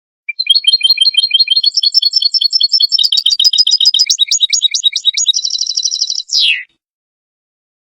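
European goldfinch song: a fast run of twittering, tinkling notes lasting about six seconds. It ends in a buzzy trill and a quick falling note, then stops abruptly.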